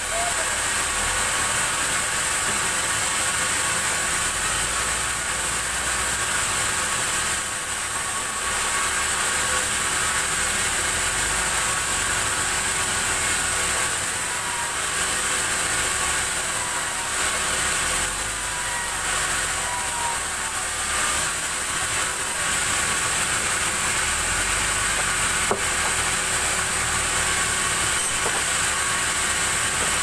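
Band sawmill running steadily, giving a constant machine hum with a strong high hiss over it. A single sharp click about twenty-five seconds in.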